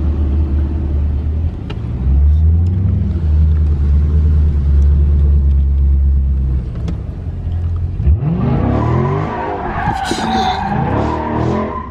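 Car engine idling with a steady deep rumble, then revved hard about eight seconds in, the revs climbing and falling repeatedly while the tires squeal as in a burnout.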